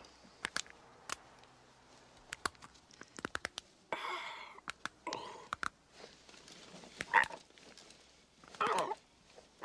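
A man snorting and sniffing, clearing his nose and throat in short bursts, among a scattering of sharp clicks, with a quick run of clicks about three seconds in and a single louder pop about seven seconds in.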